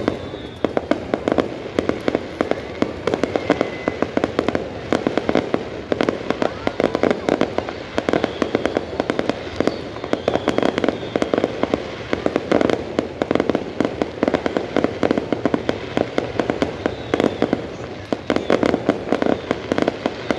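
Fireworks display: a dense, continuous barrage of bangs and crackling pops, many per second, with a few faint whistling glides.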